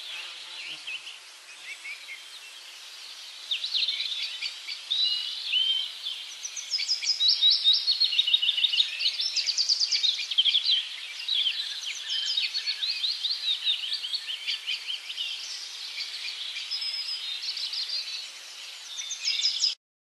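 Many birds chirping and singing at once, a dense chorus of overlapping quick chirps and trills over a faint hiss, loudest about a third of the way in. It cuts off suddenly near the end.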